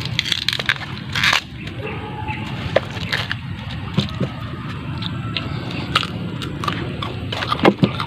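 Close-up chewing of raw coconut heart (ubod ng niyog), with irregular crisp crunches and clicks and a louder crunch about a second in.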